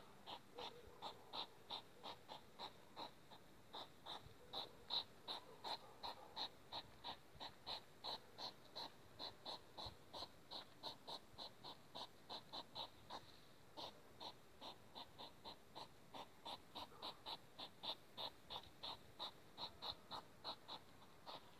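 Hedgehog huffing in short, even puffs, about three a second, kept up without a break. This is the sound of hedgehog courtship, with the male circling the female.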